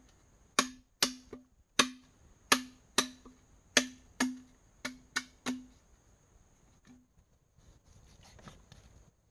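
A blade chopping into wood at ground level: about a dozen sharp strikes with a short ring, at uneven spacing over the first six seconds, and one more a second later. Near the end, faint knife cuts on a wooden chopping board.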